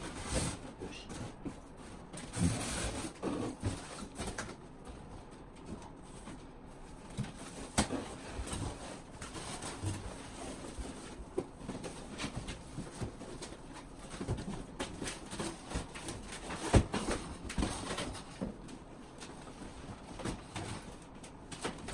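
Cardboard costume being handled and worn: irregular rustling, scraping and knocking of stiff cardboard panels as a person climbs in and stands up, with scattered sharp clicks and thumps, the loudest about 8 and 17 seconds in.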